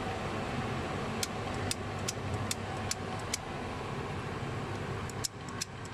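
Light clicks and taps from handling the timing-chain sprockets and bolts on the engine, about one every half second and then a quick cluster near the end, over a steady low hum.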